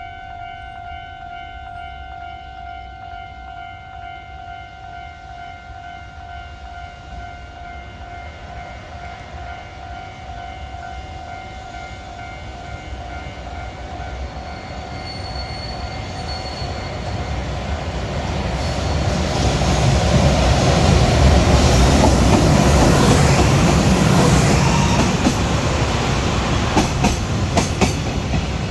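A level-crossing warning bell rings in a steady, rapidly repeating tone while an EH500 electric locomotive hauling container wagons comes closer. The train noise grows loud about two-thirds of the way through and drowns the bell, then turns to a run of regular clacks as the wagons' wheels pass over rail joints near the end.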